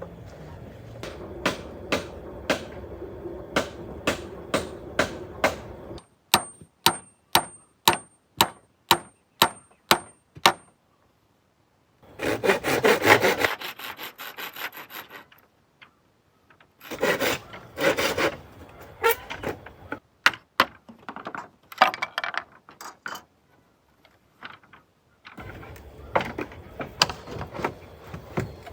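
Hand woodworking in short separate clips: a run of sharp hammer-like strikes about two a second, then quick back-and-forth strokes of sawing on wood, with more scattered knocks and strokes later.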